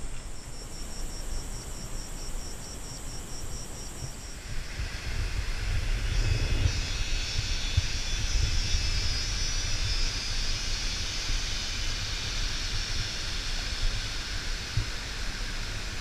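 Jungle ambience while running: an insect's high pulsing call, about four pulses a second, for the first few seconds, then a louder steady high hiss that swells in from about four seconds on and holds. Low wind rumble on the moving microphone runs under it.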